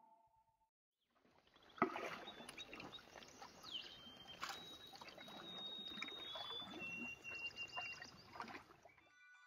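Canoe moving on calm water: the paddle dips and water trickles along the hull, with occasional knocks, the sharpest about two seconds in. A bird sings long, clear whistled notes, each a little lower than the one before. Soft music starts right at the end.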